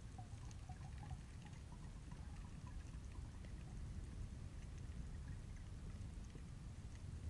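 Underwater ambience heard through an action camera's waterproof housing: a steady low rumble of moving water with scattered faint crackles and clicks. A few small bubbling blips come in the first second or two.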